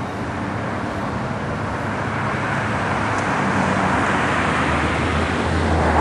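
Engine noise of a low-flying aircraft passing overhead: a steady rushing noise over a low hum, growing louder throughout.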